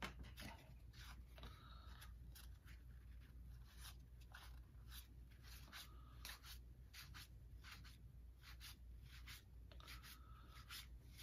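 Faint, irregular swishes and flicks of 1990 Fleer baseball cards being slid one at a time off a stack in the hands, about two a second, over a low room hum.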